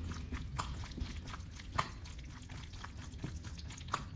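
Raw chicken leg meat being kneaded by hand with salt in a stainless steel bowl: wet squelching and squishing, with a few sharper clicks.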